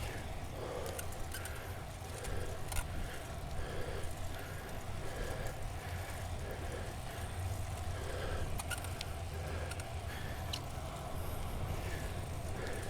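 A cyclist breathing hard in a steady rhythm, winded from sprinting on the bike, over a continuous low hum from the ride.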